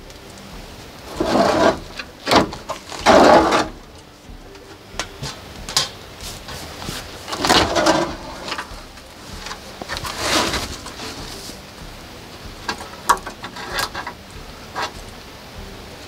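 An old wooden outhouse being pulled apart by hand: a series of scraping, creaking bursts as boards and roof sheets are worked loose, then a few short sharp knocks near the end.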